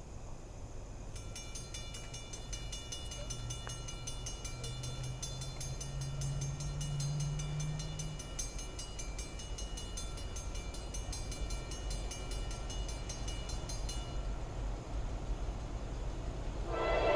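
Norfolk Southern diesel locomotive approaching from a distance: a low rumble that rises in pitch for several seconds, under a high, evenly pulsing ringing that stops a few seconds before the end. Just before the end, the locomotive's K5LA five-chime air horn starts to blow, loudly.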